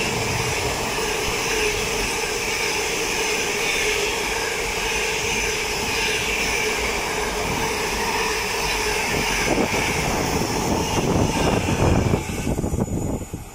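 Container wagons of an intermodal freight train passing at speed, their wheels on the rails making a steady rolling noise with a faint steady whine in it. The noise falls away sharply near the end as the tail of the train goes by.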